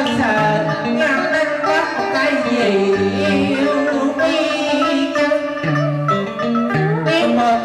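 A man singing a Vietnamese cải lương melody with a wavering, ornamented voice through a microphone and PA, over live đờn ca tài tử accompaniment on plucked strings.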